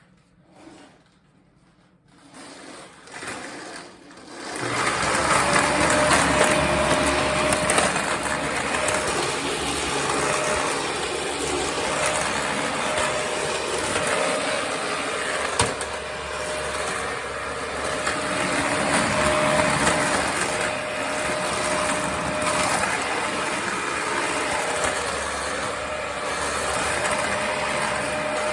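Vacuum cleaner, started about four seconds in after a few soft bumps, then running steadily with a constant whine over its rushing airflow. There is one sharp knock about halfway through.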